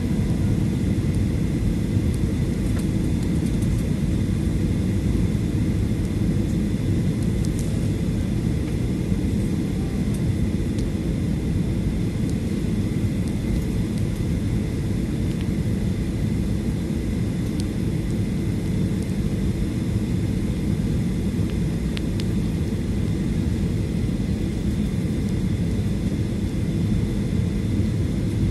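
Steady cabin noise inside a Boeing 737-800 descending on approach: a low drone of its CFM56 turbofan engines and rushing airflow, with a thin, steady high whine.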